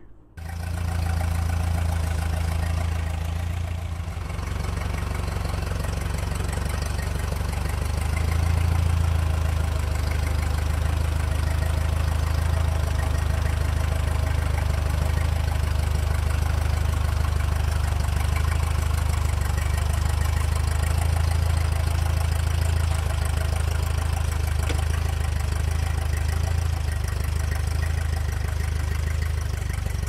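Old Ford tractor's engine running steadily as it pulls a potato plow through the rows, a constant low drone.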